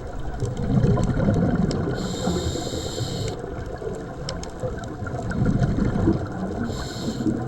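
A scuba diver breathing through a regulator underwater: the exhaled bubbles rush out twice, each time followed by the high hiss of the next breath drawn in. Faint sharp clicks crackle throughout, the usual sound of snapping shrimp on a reef.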